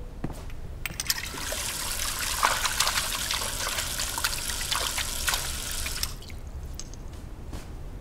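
Water running from a brass tap into a washbasin as hands are washed under it, starting about a second in and cutting off about six seconds in, with small clicks and splashes.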